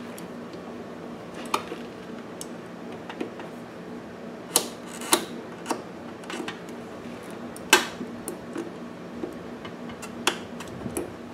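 Pliers and a metal hose clamp clicking and clacking as the clamp is worked onto a fuel hose over a brass hose-barb fitting: a scatter of sharp clicks, the loudest about two-thirds in.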